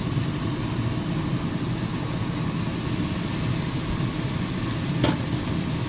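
Ground pork sausage sizzling in a cast iron skillet, over the steady hum of an air fryer's fan. A single light knock about five seconds in.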